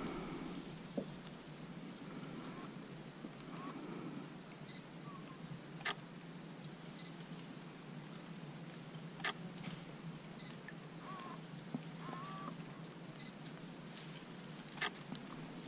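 Handheld DSLR camera taking pictures: the shutter clicks three times, with short high beeps between the shots, against a faint quiet background.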